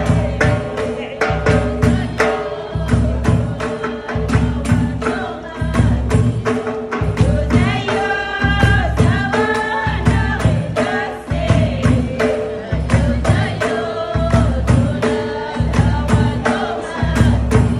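Amazigh Ahwach music: a women's chorus singing together over a quick, steady beat of frame drums.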